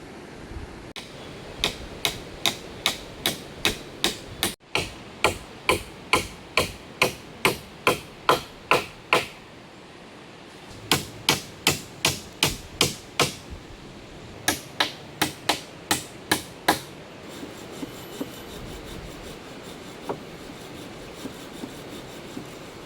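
Hammer driving nails into timber, sharp blows about two a second in three runs, the first about seven seconds long, then a few lighter taps near the end.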